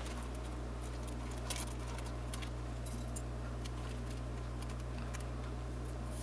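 Faint scattered ticks and rustles of plastic food packaging being handled, over a steady low hum.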